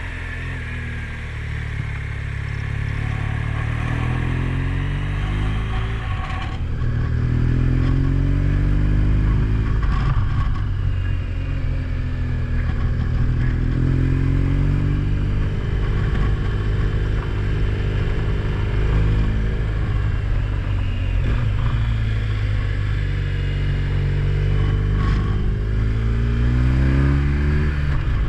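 Car engine pulling through the gears: its note climbs, drops back and climbs again several times as it accelerates and shifts, with a few short knocks along the way.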